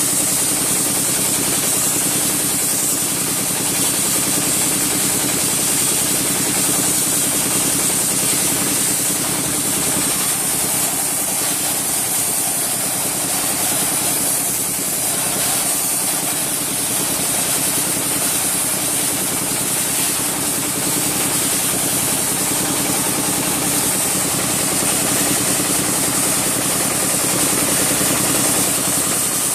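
Wet sandblaster blasting: a steady, loud hiss of the water-and-sand jet leaving the nozzle, over an engine running steadily at an even pitch.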